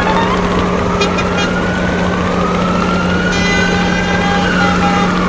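Vehicle sound effects: a steady engine drone under a siren that slowly rises and then falls, with short horn toots about a second in and again a little after three seconds.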